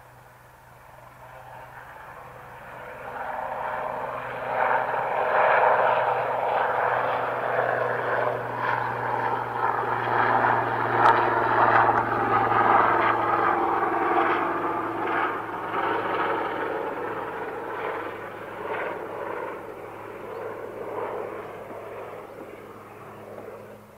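Sikorsky S-76C twin-turbine helicopter taking off and flying past, its rotors beating steadily. The sound swells over the first few seconds, stays loud through the middle, then fades as the helicopter climbs away.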